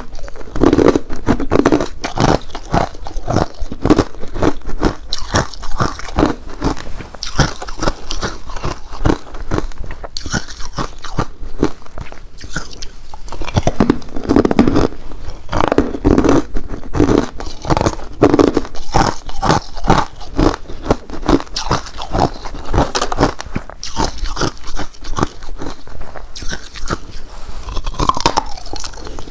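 Ice being bitten and chewed close to the microphone: a continuous run of sharp, crackling crunches as the ice shatters between the teeth.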